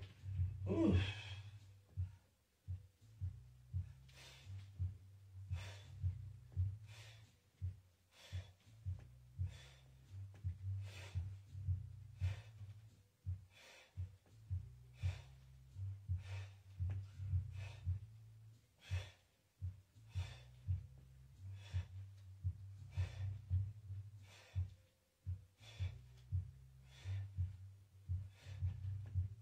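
A man breathing hard in short, forceful puffs, about one a second, as he presses a barbell on a bench.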